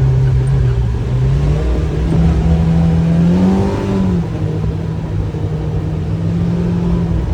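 Kawasaki Ridge XR's inline-four engine running under way, its revs climbing in steps to a peak about three and a half seconds in, then easing back and holding steady.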